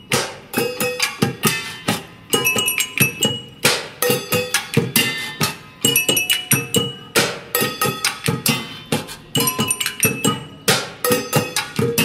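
Rhythmic percussion played on kitchenware: steel pots, a large metal pan and a grater struck with spoons and hands in a fast, steady beat, each strike clanging with a short metallic ring. There is no singing over it.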